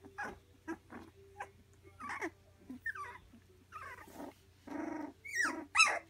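Three-week-old Labradoodle puppies playing with each other, making small growls, squeaky whines and yips. The loudest are a few sharp, high yelps that fall in pitch near the end.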